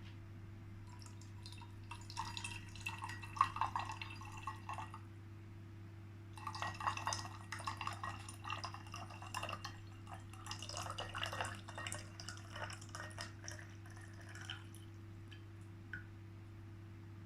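Water poured with a trickling, splashing sound in two spells, the second and longer one going on for about eight seconds, with a small Yixing clay teapot as the vessel. A steady low electrical hum lies underneath.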